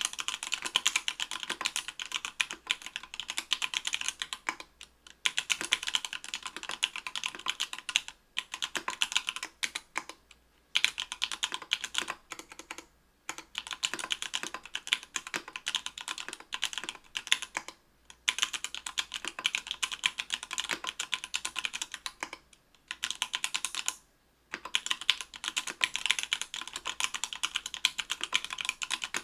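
Mechanical keyboard typing on stock, unlubed Everglide Sky Blue 55g linear switches in an aluminium plate with GMK keycaps. Keystrokes come fast and dense in bursts, with short breaks about every few seconds.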